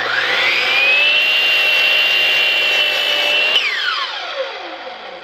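DeWalt 12-inch miter saw with a Diablo 44-tooth carbide blade spinning up with a rising whine and cutting through a 2x4. After about three and a half seconds the trigger is let go and the blade winds down with a falling whine.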